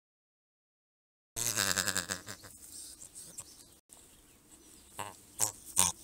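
Great bustard call recording: low, rough grunting that starts suddenly about a second and a half in and fades, then a run of short, sharp grunts, several a second, near the end.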